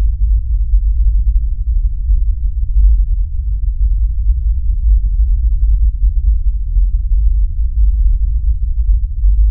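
Loud, steady, deep low rumble with nothing in the higher range: a horror-film soundtrack drone.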